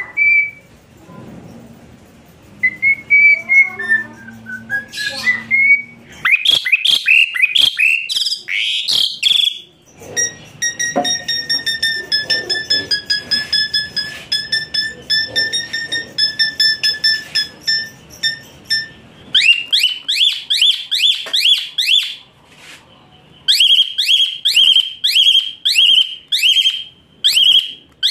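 A songbird singing loudly in varied phrases: whistled notes, then a long rapid even trill, then quick chirps repeated two or three times a second.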